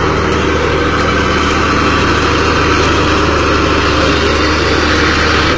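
Heavy vehicle engine running steadily with a low, even hum, working through deep mud.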